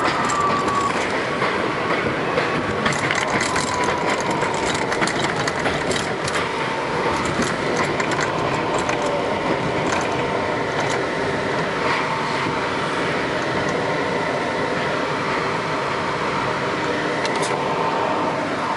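R62A subway car running on elevated track: steady rail and wheel noise with many short clicks from the rails, and a faint whine that falls slightly in pitch over the first few seconds and then holds steady.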